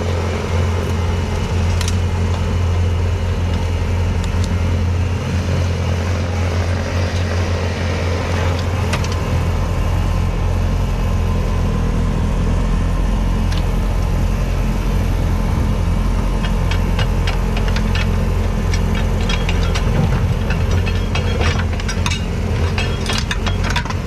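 Snowblower engine running steadily under load, with a run of sharp rattling clicks in the last several seconds.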